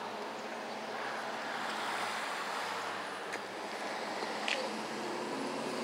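Steady outdoor background noise, an even hiss with no voices or meows, with two faint clicks in the second half.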